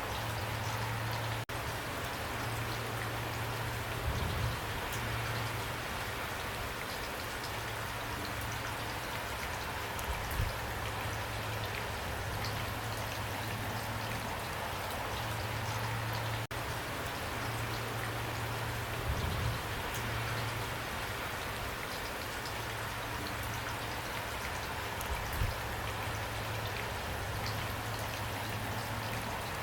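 Heavy rain pouring steadily, a dense even hiss of drops, with a few brief low thuds now and then.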